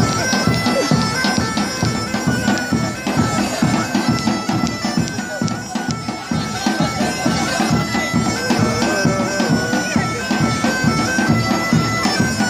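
Bagpipe dance tune over a steady drum beat: held reedy notes step through a melody above a regular pulse.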